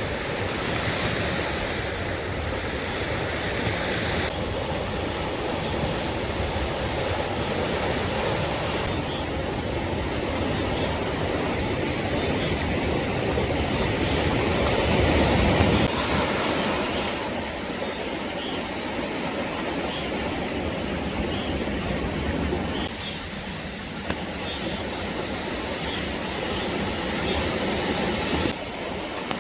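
Sea waves washing and breaking on the shore in a steady rush of surf, swelling to a louder break about halfway through.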